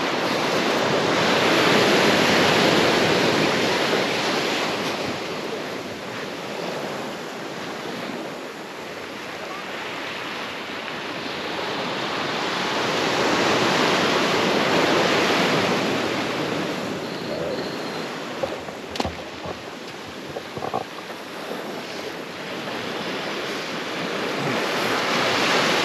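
Waves breaking and washing up a sandy beach, the surf noise rising and falling in three slow surges about eleven seconds apart.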